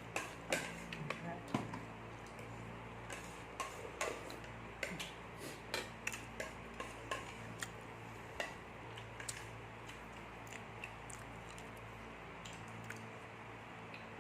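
Spoons and forks clinking against plates and bowls while people eat, a run of short sharp clicks that thins out after about eight seconds, over a steady low hum.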